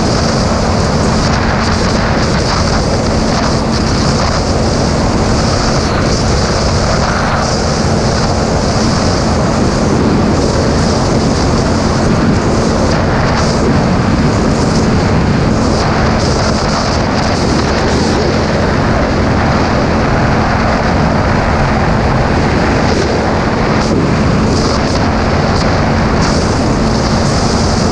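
Motorcycle cruising at a steady speed: heavy wind rush on the microphone over the engine holding constant revs.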